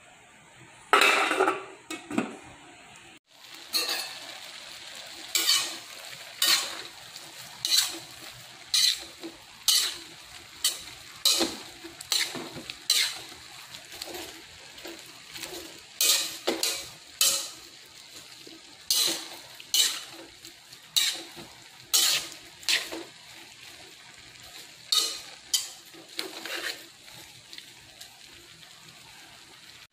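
A spatula scraping and tossing mung bean sprouts and tofu in a wok, about one stroke a second, over a low sizzle. About a second in, a loud rush as liquid from a bowl is tipped into the hot wok.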